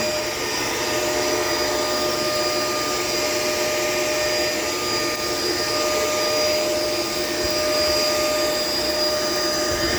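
Shark LA702 vacuum cleaner running steadily, a constant motor whine over airflow noise.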